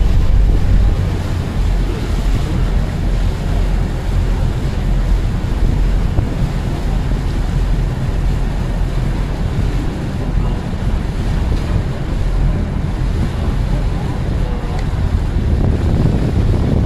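Wind buffeting the microphone on a moving river boat, over a steady rush of water.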